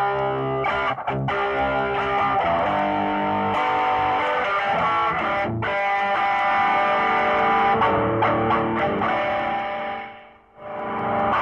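Electric guitar played through a homemade distortion pedal and a homemade 4-channel mini mixer into an amplifier: distorted chords ring out and change every second or two. The sound drops away briefly near the end, then comes back.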